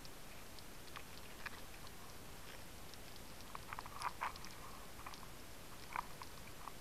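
Underwater ambience picked up through a camera housing: a steady faint hiss with scattered sharp clicks and crackles. A cluster of louder clicks comes about four seconds in and another near six seconds.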